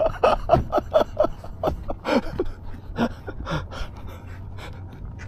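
Men laughing in short breathy bursts, several a second, dying away about three and a half seconds in.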